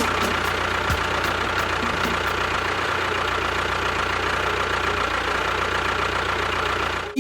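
A motor running steadily at a constant speed, with a low hum and a faint high whine; it stops abruptly near the end.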